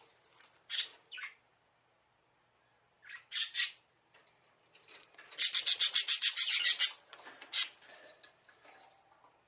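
Budgerigar in its cage making short, scratchy rasps, then about a second and a half of fast, even rasping pulses, about eight a second, about halfway through.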